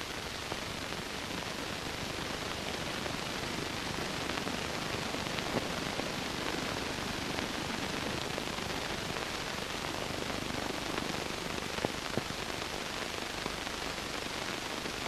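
Steady hiss and static of an old film soundtrack, with a few faint clicks.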